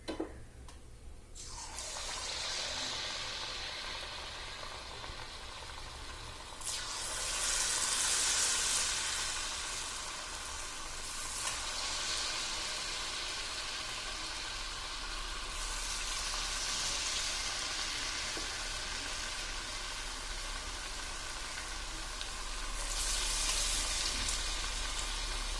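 Batter-coated ripe jackfruit pieces sizzling as they deep-fry in hot oil. The sizzle starts a second or so in after a single click, and swells three times: about 7 seconds in, around 16 seconds and around 23 seconds.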